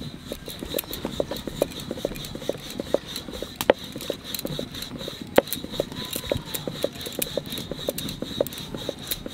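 Rolling pin rolling out a roti on a round board, the pin knocking and clicking against the board in an uneven run of light knocks, a few a second.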